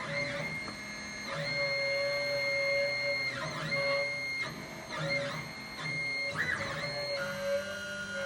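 Stepper motors of a CNC plasma table driving the gantry along the cut path in a dry run, torch off. They give a steady whine of several tones that dips and climbs back in pitch each time the motion slows and speeds up at a corner, and the pattern of tones shifts near the end.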